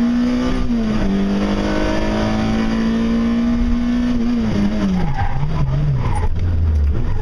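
Fiat Seicento rally car's engine heard from inside the cabin, pulling hard: the revs drop sharply at an upshift about a second in, then climb steadily until the driver lifts off about four and a half seconds in and the engine note falls and wavers low. Short tyre squeals come in near the end.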